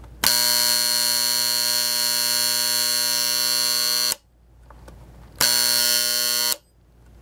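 Mechanical alarm buzzer of a 1950s Westclox Moonbeam electric alarm clock going off: one steady buzz of about four seconds, then after a short gap a second buzz of about a second, each stopping suddenly.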